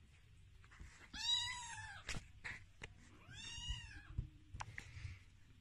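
Sphynx kittens mewing: two high-pitched mews, each rising and falling, about a second in and again past the midpoint, with small taps and clicks between them.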